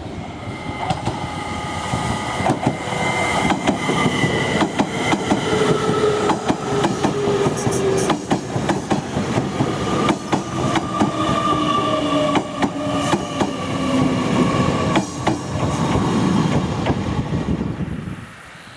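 JR Kyushu 885 series electric limited-express train passing at speed, its wheels clicking rapidly over the rail joints, with whining tones that slowly fall in pitch as it goes by. The sound drops away shortly before the end.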